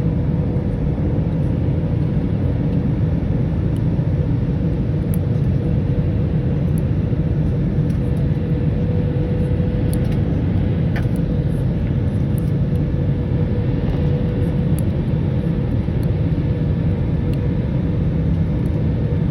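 Steady low rumble of an airliner cabin in flight, with a faint steady hum over it.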